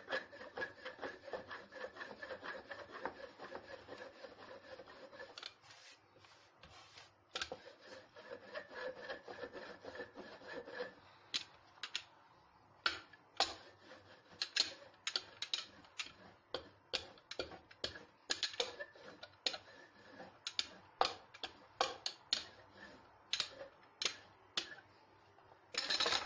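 Wooden rolling pin rolling out lavash dough on a floured board: quick back-and-forth rubbing strokes at first, then from about halfway on, a string of sharp wooden knocks and clacks as the pin is worked and turned. A louder clatter comes near the end as the pin is set down.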